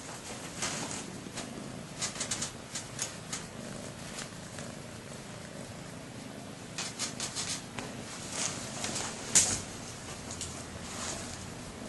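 Domestic cat purring steadily, with scattered light clicks and rustles, the loudest click about nine seconds in.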